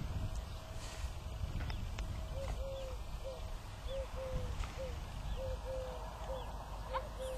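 Dutch Shepherd whining in short rising-and-falling notes, about two a second, starting about two seconds in, over a low rumble.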